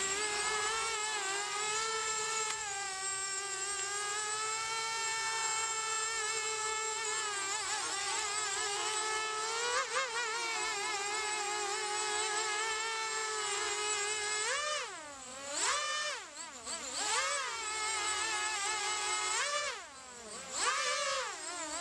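Eachine Falcon 210 Pro racing quadcopter's brushless motors and stock propellers, on a three-cell battery, spinning up into a steady high buzzing whine as it hovers. In the last third the pitch swoops down and up several times as the throttle is cut and punched.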